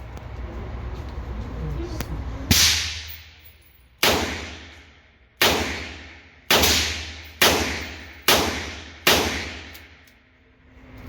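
Handgun firing seven shots in a row, closing up slightly as the string goes on, each crack followed by a short echoing tail from the indoor range.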